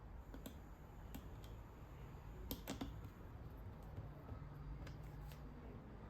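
Scattered small plastic clicks and taps from a Logitech wireless keyboard being handled and put back together, about seven at irregular intervals with the loudest pair about halfway through.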